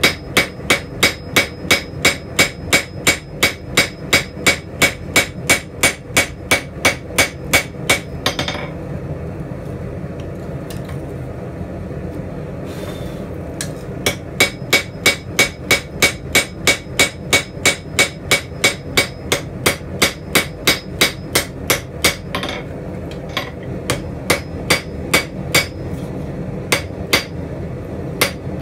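Hand hammer striking a red-hot steel spatula blade on an anvil in a steady rhythm of about two and a half blows a second, each blow ringing. The hammering stops for about five seconds a third of the way in, then resumes, with a short pause again near the end.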